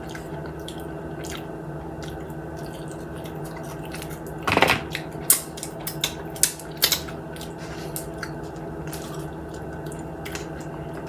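Close-up chewing and lip smacking while eating fried chicken, with a handful of short wet smacks, the strongest about four and a half seconds in, over a steady low hum.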